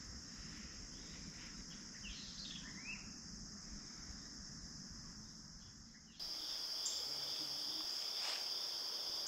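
Steady high-pitched insect chorus, with a few short bird chirps two to three seconds in. About six seconds in, the insect sound jumps suddenly louder.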